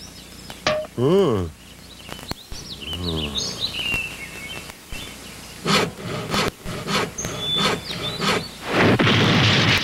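Stop-motion cartoon soundtrack: an alien's warbling, wordless vocal sounds and a caveman's grunts over forest ambience with chirping birds, then a run of sharp knocks and, near the end, a loud rushing crash as a tree falls across the gap.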